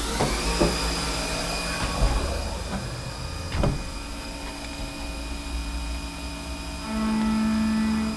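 CNC vertical machining center's spindle spinning up with a rising whine that settles into a steady run, with a few knocks in the first few seconds. Near the end a louder steady hum of about a second sets in as the machine starts its cycle on the brass parts.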